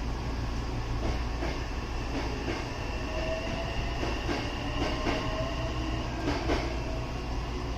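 A train passing close by on a neighbouring track, its wheels clacking over rail joints in quick pairs, with a faint steady whine for a few seconds in the middle. Under it runs the steady hum of a standing electric railcar's equipment.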